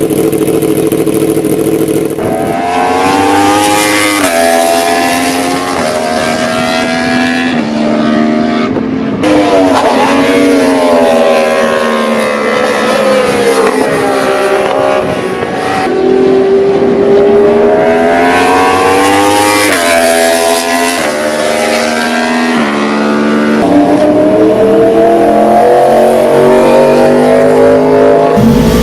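Yamaha R1 superbike's crossplane inline-four engine under hard acceleration through a straight-through exhaust. The pitch climbs and drops sharply at each upshift, several runs through the gears in a row, with a brief lift and re-rev near the middle.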